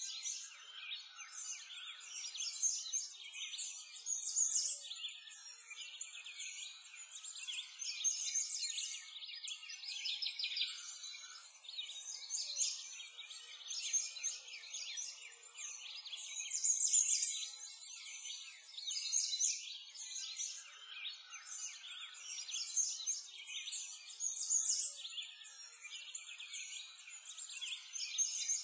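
Many small songbirds chirping and trilling together in a continuous chorus, high-pitched, with no low sound under it.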